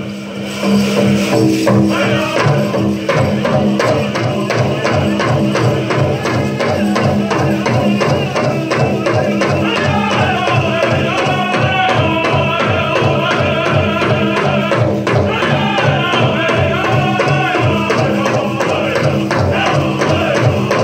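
Powwow drum group playing a jingle dress song: a steady, even drumbeat with high-pitched group singing that comes in strongly about two seconds in, and the metal jingle cones on the dancers' dresses shaking in time.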